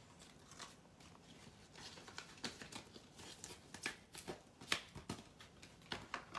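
Faint rustling and light clicking of a clear plastic die-set sleeve and a plastic stamp-set case being handled, with short crinkles that come thickest in the middle.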